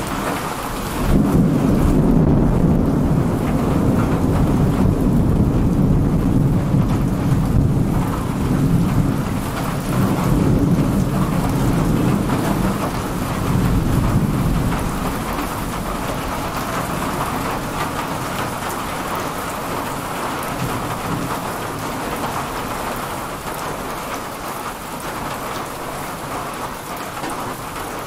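Heavy thunderstorm rain pouring steadily. About a second in, a long peal of thunder breaks in with a deep rumble that rolls on for over ten seconds before fading away.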